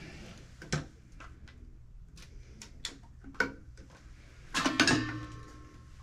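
Plastic toilet ballcock (fill valve) being handled and worked by hand: a few scattered light clicks, then a louder clatter with a short scrape about five seconds in.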